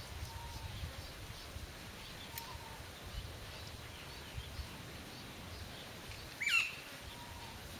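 A puppy gives one short, high yelp about six and a half seconds in, as it is being picked up. Faint short chirps sound in the background.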